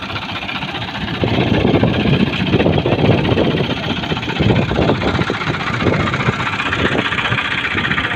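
Ford 4560 tractor engine running steadily. About a second in it grows louder, with dense, irregular clattering over it.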